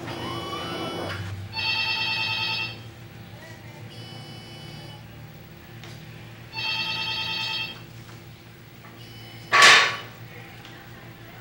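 Telephone ringing in bursts of about a second, a loud ring roughly every five seconds with a fainter ring between them. A sudden, short, loud noise, the loudest sound here, comes near the end.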